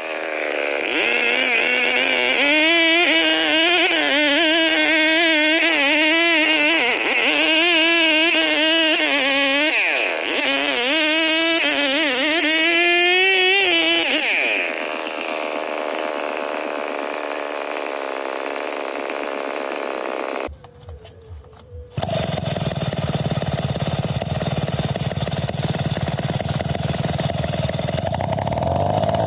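Background music with a wavering melodic line for roughly the first half. After a brief cut, a Stihl 070 two-stroke chainsaw runs from a little past the two-thirds mark and revs up near the end.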